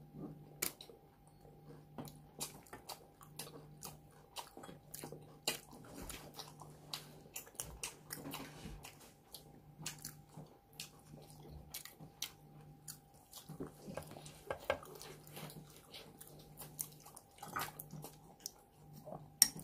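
Close-up chewing of crusty toasted garlic bread with mashed avocado: many small, crisp crunches and mouth sounds. Near the end a spoon clinks a couple of times against a glass jar.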